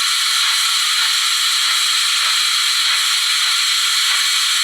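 The ESU sound decoder of an HO-scale SNCB Series 98 steam locomotive model playing a steady steam hiss through the model's small speaker, thin with no low end.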